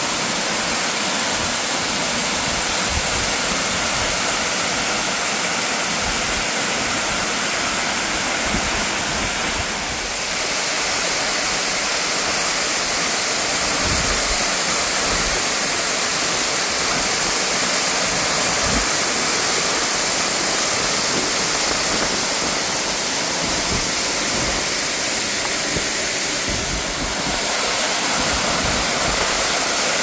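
Hyakuhiro Falls pouring into its plunge pool: a steady, full rush of falling water, dipping slightly in level twice.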